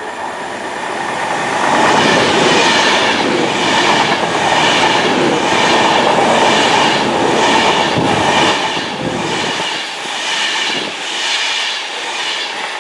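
Avanti West Coast Class 390 Pendolino electric train passing close by. It grows louder as it approaches, then holds as a loud rush of wheel and rail noise with a regular clatter of about two beats a second. It eases off in the last few seconds.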